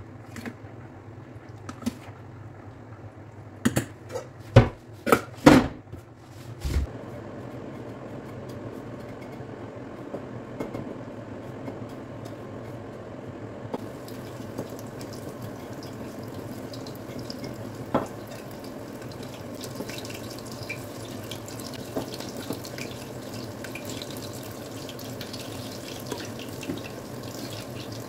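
Several sharp metal knocks against a stainless steel bowl about four to seven seconds in, then the steady sizzle and crackle of hot oil deep-frying breaded fish in a stainless pot, growing brighter about halfway through.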